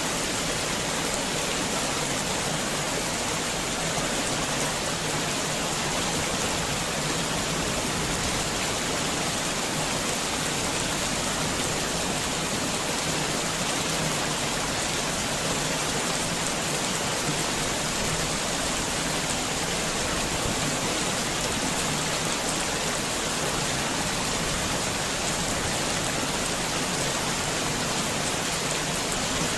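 Heavy rain falling steadily, an even hiss of drops on surfaces with no breaks or sudden sounds.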